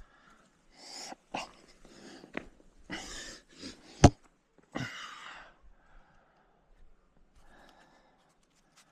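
A climber's hard breathing on the wall: several sharp, noisy exhales, with one sharp clack about four seconds in, the loudest sound.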